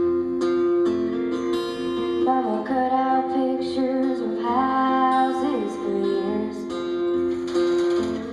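Live song: strummed acoustic guitar chords ring steadily, with a sliding, bending melody line over them from about two to six seconds in.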